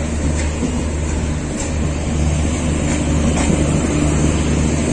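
Passenger express train running: a steady rumble with a low hum and a few faint knocks.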